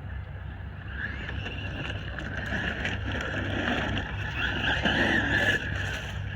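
Traxxas Maxx electric RC monster truck driving on a 3S LiPo, its brushless motor and drivetrain whining over a steady low rumble. The whine builds and is loudest about five seconds in, then eases.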